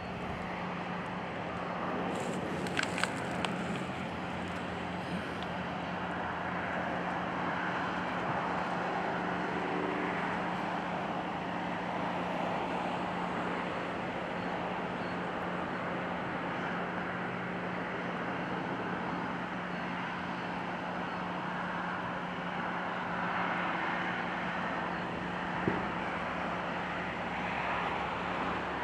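Steady noise of road traffic on a parkway, cars passing in a continuous wash, with a steady low hum underneath. A few small clicks about two to three seconds in and a single knock near the end.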